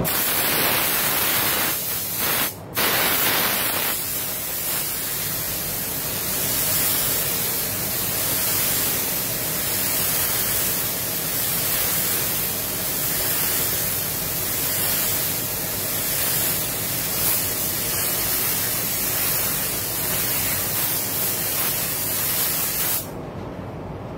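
Compressed-air paint spray gun hissing steadily as clear coat is sprayed onto a car body. The spray cuts out briefly twice about two seconds in and stops abruptly about a second before the end, leaving the paint booth's steady ventilation rumble.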